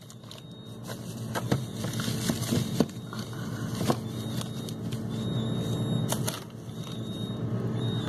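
Plastic bags and packets of frozen food crinkling and knocking as they are shifted around on freezer shelves, with irregular sharp clicks and a steady low hum underneath.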